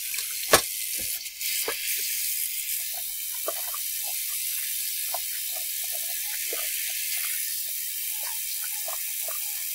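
Kitchen faucet running steadily as water pours into a plastic bottle to fill it. There is a sharp knock about half a second in and a few smaller knocks just after.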